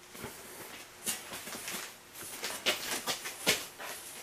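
Footsteps on a concrete floor and a thin sheet-metal panel being picked up and handled: a run of irregular knocks and metallic rattles.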